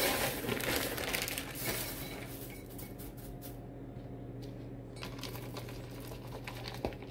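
A plastic bag rustles as shredded hash browns are poured into a ceramic slow-cooker crock, loudest in the first two seconds. After that come quieter light handling noises and a few small clicks and taps, over a steady low hum.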